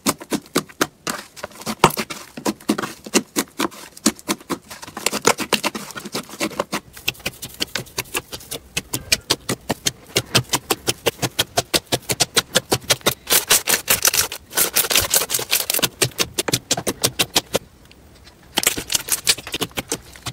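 Slime being pressed, squeezed and poked by fingers, giving long runs of rapid clicks and crackles, with a short pause near the end.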